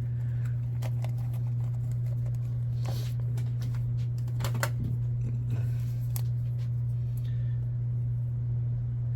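A steady low hum throughout, with a few light clicks and rustles of small plastic and rubber parts being handled, about three seconds, four and a half seconds and six seconds in.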